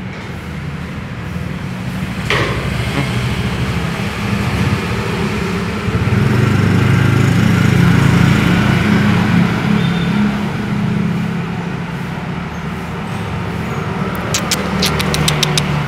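Road traffic: a motor vehicle engine running close by, swelling louder in the middle and easing off again. A quick run of sharp clicks near the end.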